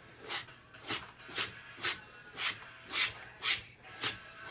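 Mora 511 knife blade stroked on a leather hand strop, about nine quick rubbing strokes at roughly two a second, working off the burr left by sharpening.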